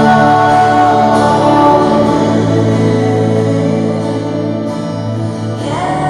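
Live Christian worship song: a woman singing into a microphone over keyboard chords and a small strummed guitar, with long held notes.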